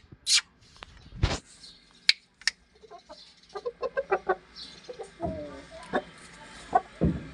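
Aseel chickens clucking, with a quick run of short clucks about halfway through and a longer call soon after. Several sharp knocks or taps sound in the first couple of seconds.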